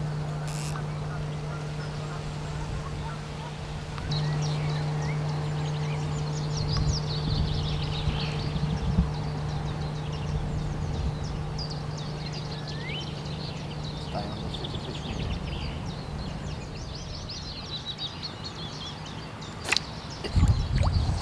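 Lakeside ambience of birds calling and chirping over a steady low hum. Near the end a sharp click is followed by a burst of loud low thumps and splashing as the float rod is struck into a hooked tench.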